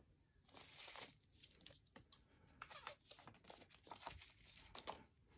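Faint crinkling and rustling of plastic packaging handled by hand: a soft rustle about half a second in, then a run of small crackles and ticks.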